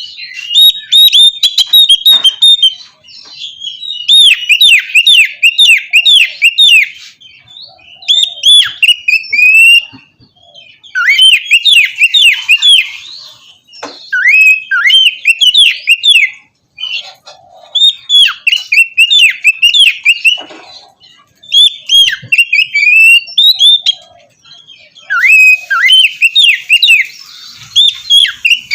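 Oriental magpie-robin (kacer) singing in full song: loud phrases of rapid rising and falling notes, each one to two seconds long, with short breaks between them.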